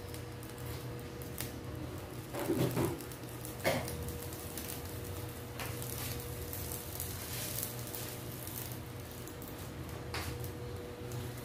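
Covered frying pan of kangkong and egg simmering on a gas stove: faint bubbling and spattering crackles under a glass lid over a steady low hum. A couple of short, louder sounds stand out about three seconds in.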